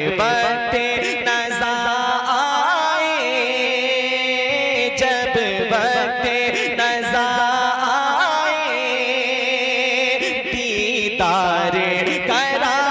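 A man singing a naat into a microphone, drawing out long ornamented notes that waver up and down in pitch.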